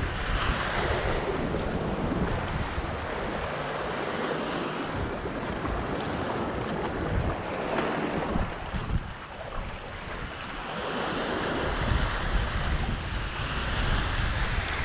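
Small waves washing and breaking against the rocks of a jetty, the wash swelling and easing, with wind buffeting the microphone.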